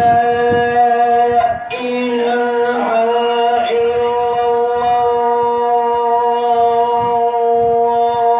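A muezzin giving the adhan, the call to prayer: a man's voice holding long drawn-out notes, with a short break about a second and a half in.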